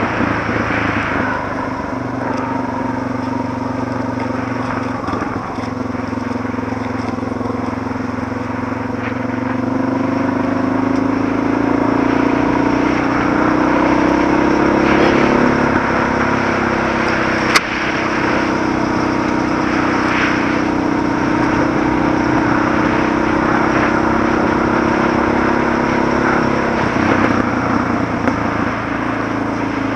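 Suzuki DR650's single-cylinder four-stroke engine running under way on a gravel road. Its pitch climbs for several seconds in the middle, then falls back, with one sharp tick about two-thirds of the way through.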